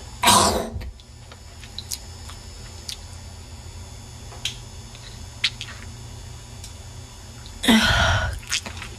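A woman's wet, congested coughing: one cough just after the start, a pause with only faint small clicks, then another cough near the end followed by a short extra hack.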